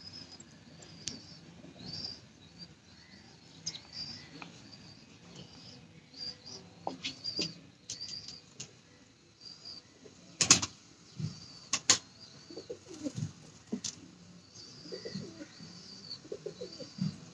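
Birds at a pigeon loft: short high-pitched chirps repeating many times, with low pigeon cooing in the second half. Two sharp clatters a little past the middle are the loudest sounds.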